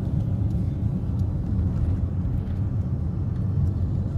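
Steady low rumble of a moving road vehicle: engine and tyre noise heard while driving along.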